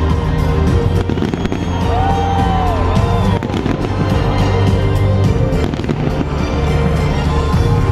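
Aerial fireworks bursting and crackling in many rapid sharp cracks, over loud music.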